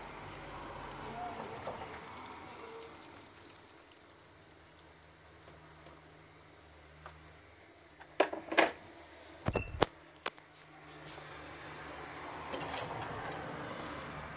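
Boiling water from an electric kettle pouring into a paper cup of instant noodles for the first couple of seconds, then a few sharp knocks about eight to ten seconds in. Near the end a metal spoon stirs the noodles in the hot broth, with one sharp clink.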